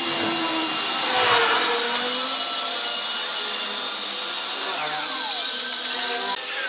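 Electric machine polisher running steadily, its foam pad buffing the dull paint on a car's hood.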